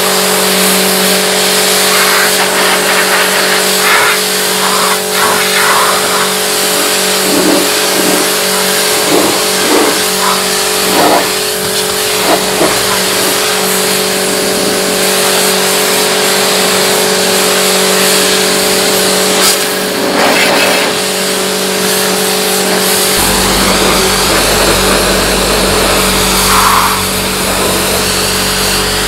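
Pressure washer running: the pump motor's steady hum under the hiss of the high-pressure jet blasting caked mud off the car's body panels. A deeper low rumble joins in about two-thirds of the way through.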